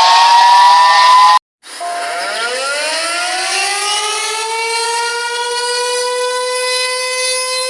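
A loud, hissy siren wail with slowly rising pitch cuts off abruptly about a second and a half in. After a brief gap, a civil defense siren winds up from a low pitch and settles into a steady, sustained wail.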